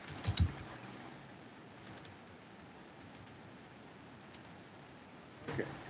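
Computer keyboard typing: a few faint, scattered keystrokes over a low steady hiss. There is a brief louder thump just after the start and another short sound near the end.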